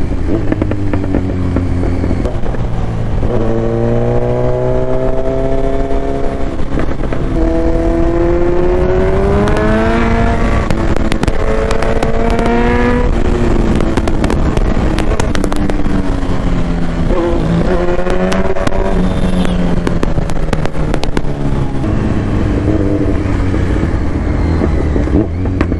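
Motorcycle engine accelerating through the gears. Its pitch climbs in several long pulls, and each pull drops back at the upshift.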